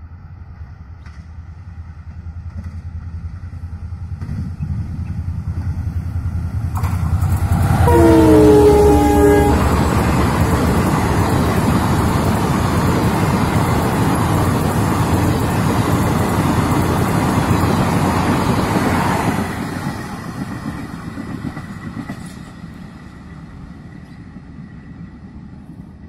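EMD WDP-4B diesel locomotive approaching at speed with a building engine rumble, then one short horn blast of about a second and a half, its pitch dropping slightly as the locomotive passes. The passenger coaches rush past for about ten seconds before the sound fades away.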